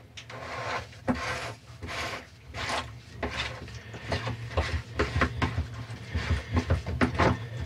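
Plastic bowl of a freshwater pump's inline strainer being unscrewed by hand through a rag: the threads and rag rub and scrape in short, irregular strokes.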